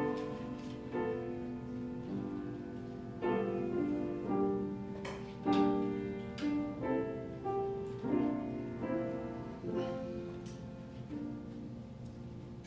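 Piano playing slow instrumental music, with notes and chords struck about once a second, each ringing and fading, growing quieter near the end.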